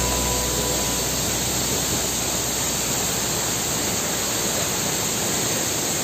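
Waterfall plunging down a cliff: a loud, steady, even rush of falling water.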